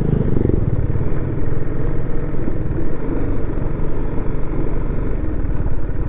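Motorcycle engine running steadily while riding along, with road and wind noise.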